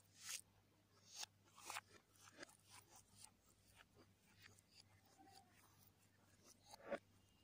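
Faint close-miked eating sounds: chewing and wet mouth smacks, with fingers scraping food across a ceramic plate. A sharper smack comes just before the end.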